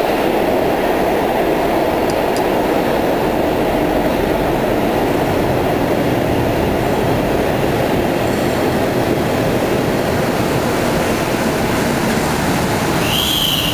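Vintage tram running on steel rails through a concrete tunnel, a steady rumble with echo. A high squeal from the wheels sets in near the end as it comes into the platform.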